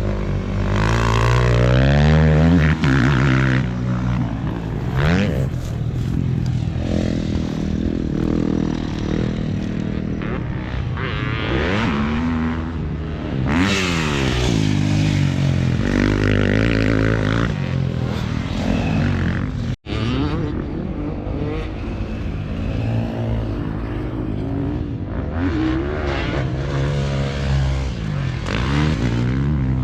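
Dirt bike engine revving on a motocross track, climbing in pitch and dropping back again and again. The sound cuts out for an instant about twenty seconds in.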